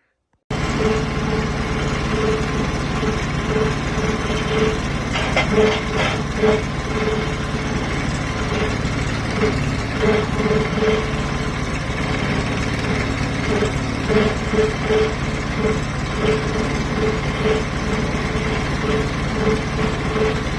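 Branson compact tractor's diesel engine running steadily, with an uneven pulsing tone over the engine note; it cuts in abruptly about half a second in.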